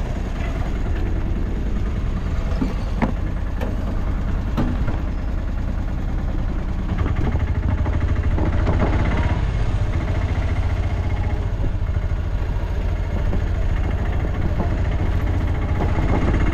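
Tuk-tuk (auto-rickshaw) engine running steadily, growing louder about seven seconds in.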